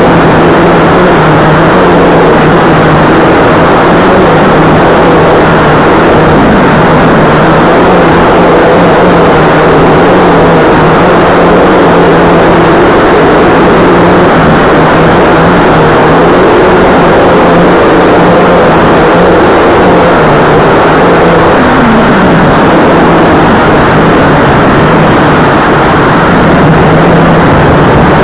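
Blade 350QX2 quadcopter's electric motors and propellers running loud and close, a dense whirring with a low hum that shifts a little in pitch as the craft manoeuvres, and one short downward glide about three-quarters of the way through.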